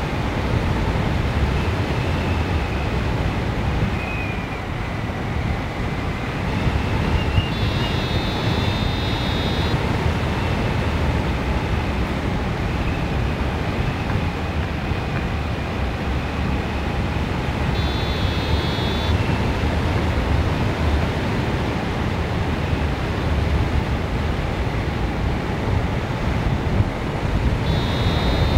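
Wind rushing over the microphone of a hang glider in flight, a steady heavy rumble and hiss. Short spells of high electronic beeping cut in three times: about eight seconds in, around eighteen seconds, and again at the end.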